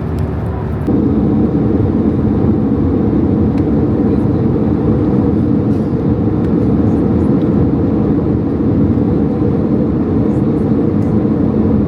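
Steady hum of an Airbus A320-200's engines and cabin air, heard from inside the passenger cabin. It steps up a little about a second in and then holds level.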